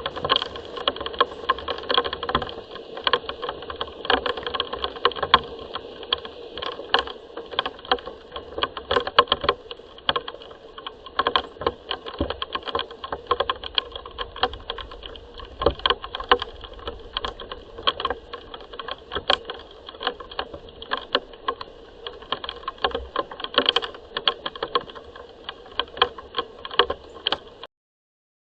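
Rain falling steadily, with a dense, irregular spatter of close drop impacts. The sound cuts off abruptly shortly before the end.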